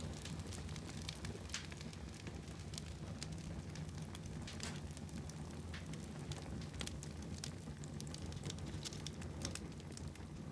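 Wood fire crackling in a fireplace: frequent irregular sharp pops and crackles over a steady low rumble of the flames.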